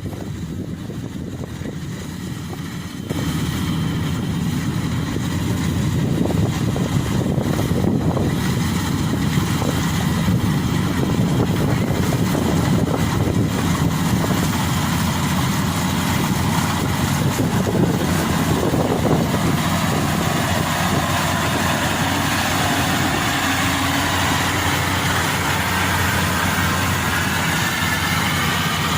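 Rice combine harvester's engine running steadily, getting louder about three seconds in, with a faint rising whine near the end.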